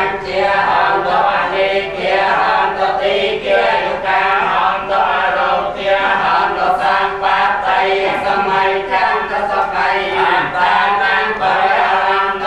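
A group of Cambodian Theravada Buddhist monks chanting together in Pali, a steady unison recitation of many male voices.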